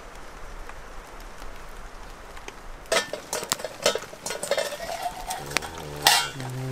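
Metal camp cookware clinking and scraping, with sharp knocks starting about three seconds in and the loudest about six seconds in, over a faint steady hiss. A person's voice hums briefly near the end.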